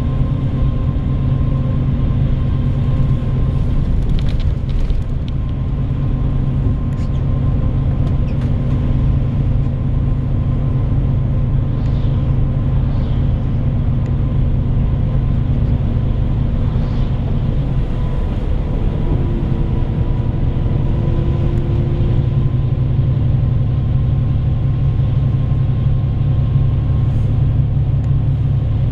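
Bus engine and road noise heard from inside the passenger cabin: a steady low drone.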